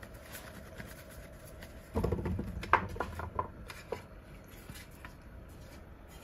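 Flour-dusted mushrooms being tossed and shifted by hand in a metal tray: soft rustling with light knocks of mushrooms against the tray. The handling is busiest about two to four seconds in.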